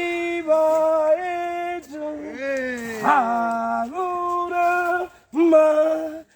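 A single voice singing a traditional song in long held notes with slides between them, breaking into shorter phrases with pauses near the end.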